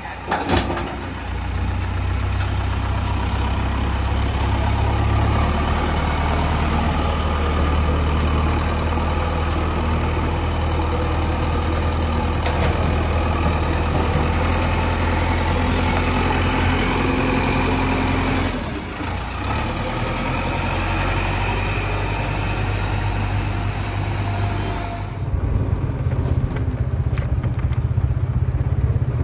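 JCB 3DX backhoe loader's diesel engine running with a steady low drone. The sound changes abruptly about two-thirds of the way through, and again a few seconds before the end, where it turns rougher.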